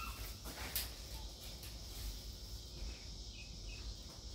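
Faint steady chirring of insects outdoors, with one brief light knock about three-quarters of a second in as a foam packing sheet is handled.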